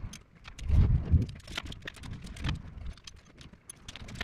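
Quick, irregular metallic clicks and clinks of hand tools and valve-train parts as rocker arms and pushrods are fitted and adjusted on an Ecotec V6's cylinder heads, sped up by a time-lapse, with a few dull knocks about a second in.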